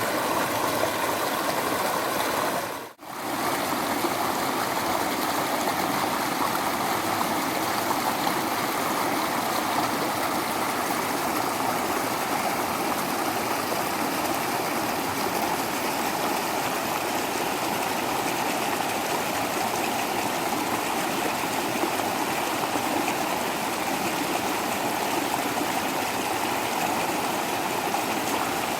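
Waterfall and stream water rushing and splashing, a steady even roar. It drops out briefly about three seconds in and picks up again.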